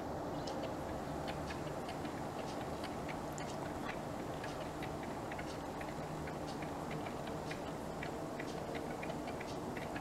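A flock of grey partridges foraging, with many short, high ticks scattered irregularly, over a steady low background hum.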